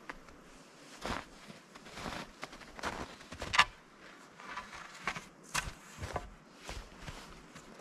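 Footsteps crunching in snow, a stroke roughly every half second to second, with a sharp crack about three and a half seconds in.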